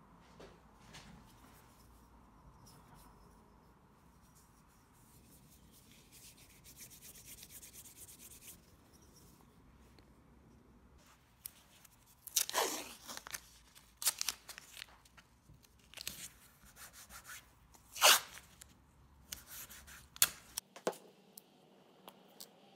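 Blue painter's tape being pulled off its roll and torn into strips, in several short tearing sounds in the second half, the loudest a little over three-quarters through. The first half holds only faint rubbing and handling sounds.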